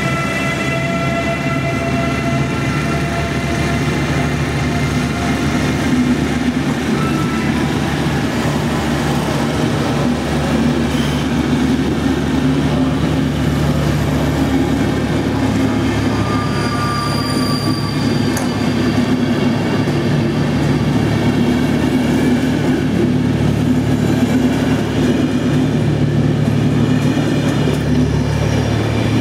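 A passenger train hauled by a Siemens EuroSprinter (EU44 Husarz) electric locomotive passing close by. The locomotive's whining tones fade over the first few seconds. After that, the coaches roll past with a steady, loud rumble and hum of wheels on rail.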